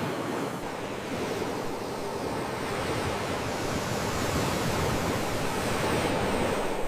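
Sea waves washing in, a steady rushing surf that swells a little louder in the second half.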